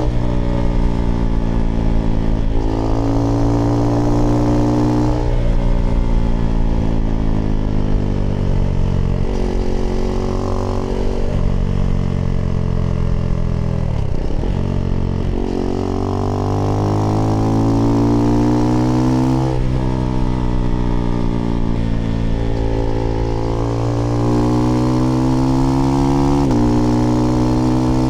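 Husqvarna Svartpilen 401 single-cylinder engine through an aftermarket IxRace Mk.2 exhaust with a modified dB killer, pulling under throttle. Its pitch climbs and drops back several times as it runs up through the revs and shifts gear. About halfway the revs fall away sharply, then climb again.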